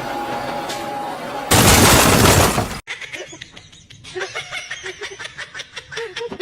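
A loud crash, like something breaking or collapsing, lasting just over a second and cutting off abruptly, followed by quieter voices.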